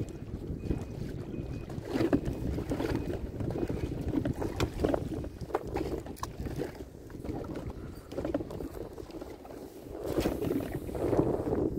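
Wind rumbling on the microphone and small waves lapping against an inflatable boat's hull, with scattered light clicks.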